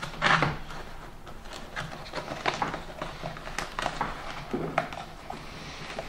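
A foam wet-use sleeve being worked by hand over the plastic filter cage of a Titan wet and dry vacuum: scattered light clicks and taps of plastic, with foam rubbing in between, the sharpest knock just after the start.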